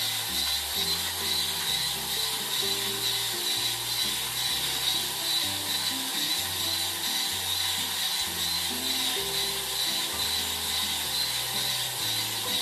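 Starseeker Edge electric coffee grinder running steadily, its titanium-coated burrs grinding coffee beans for espresso at a very fine setting, with background music over it.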